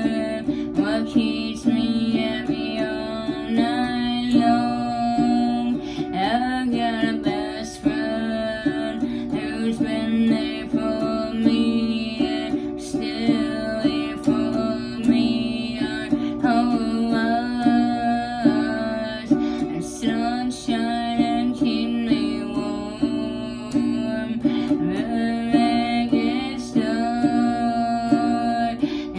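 Music led by a plucked acoustic guitar, playing continuously.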